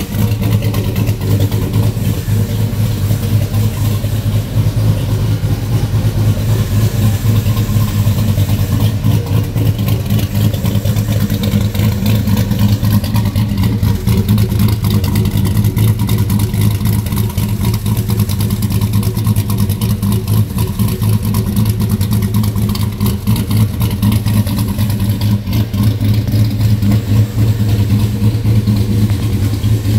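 Cammed V8 of an SS pickup truck with a 228/228 camshaft, idling steadily at one pitch with no revs.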